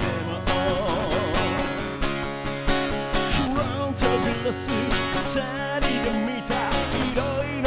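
A man singing a rock song to his own strummed guitar, with a steady bass line underneath.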